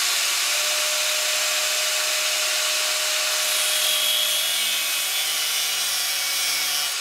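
Angle grinder with a cut-off disc running at speed, its motor a steady whine over a loud, even hiss, as the disc cuts a notch into a steel gas lift strut.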